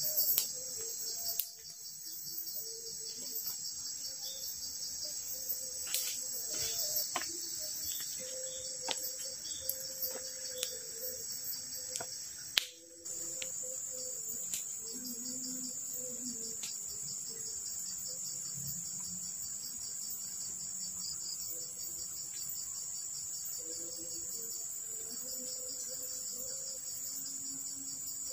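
Dense, steady chorus of crickets and other insects, a high shrill pulsing with no pause. In the first dozen seconds it is dotted with scattered sharp snaps and cracks.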